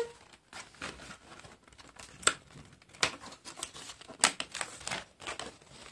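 Thin printed card rustling and snapping as die-cut pieces are pushed out of their sheet by hand: scattered small tearing snaps and crinkles, the sharpest about two, three and four seconds in.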